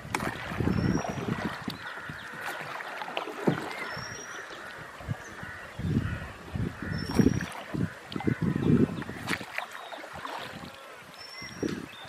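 Rowboat on the river: irregular low knocks and splashes of the boat and oars, over a steady mix of bird calls, with one short high rising chirp repeated about every three seconds.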